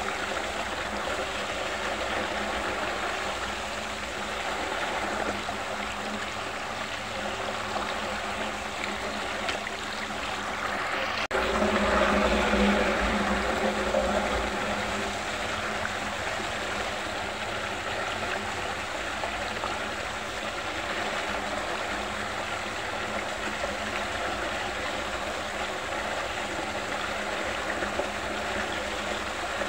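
Water swirling and draining down a whirlpool vortex, a steady rushing and gurgling with a low steady hum beneath it. It swells louder for a few seconds a little over a third of the way in.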